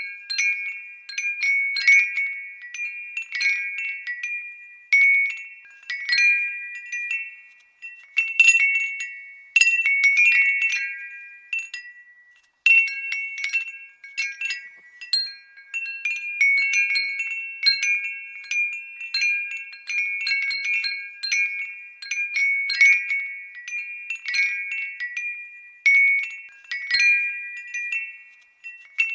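Glass windbell (fūrin) tinkling: the clapper strikes the glass irregularly in clusters, each strike ringing a few high, clear tones that fade before the next, with short lulls now and then.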